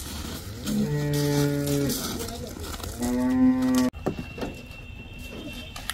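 Humped zebu-type cow mooing twice: first a lower call about a second long, then a higher, shorter call that cuts off suddenly.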